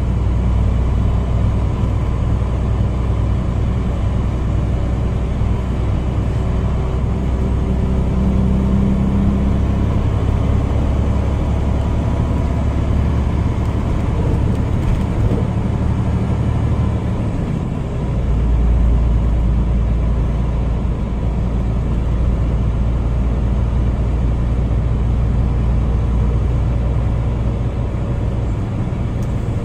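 Tractor-trailer's diesel engine and road noise heard inside the cab while driving, a steady low drone. About 17 seconds in the engine note shifts to a lower pitch and holds there.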